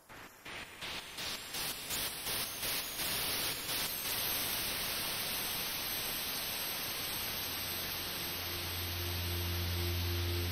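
Electronic sound design: pulses of white noise, about three a second and growing louder, merge into a steady hiss. Near the end a low hum and a few steady sine tones fade in, the higher ones pulsing.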